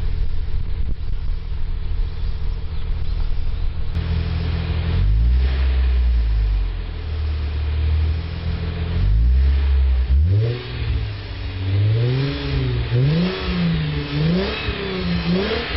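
Toyota Mark X (120 series) V6 through an M'sRealize silent muffler, heard at the tailpipe: idling steadily, then from about ten seconds in blipped over and over, the revs rising and falling about once a second.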